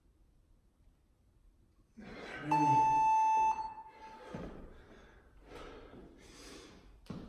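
Interval workout timer sounding one long electronic beep about two and a half seconds in, lasting about a second. It marks the end of a 30-second interval and the switch to the next exercise.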